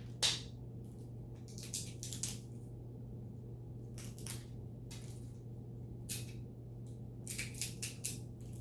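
Packaging being handled in short bursts of crinkling and crackling, a few each second or two, over a steady low hum.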